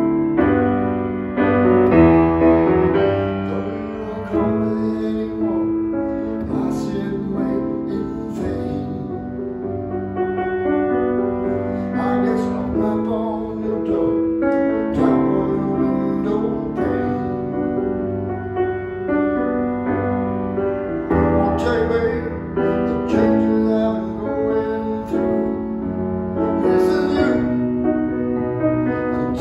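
Steinway Model B semi-concert grand piano being played: full chords held and changing every second or two over low bass notes, the notes ringing out.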